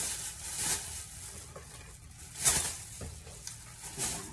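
Plastic shopping bag and packaging rustling and crinkling in a few short bursts as items are handled, the loudest about two and a half seconds in.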